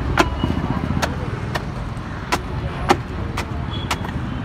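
Sharp knocks of wooden paddles against the stainless-steel pans of a street ice cream cart, about seven at a steady pace, over the low, steady rumble of road traffic.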